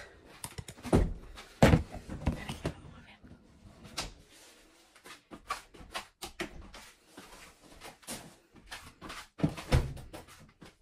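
Household knocks and thumps from a phone camera being carried and handled, with scraping and rustling between them. A sharp knock under two seconds in is the loudest, and another comes near the end.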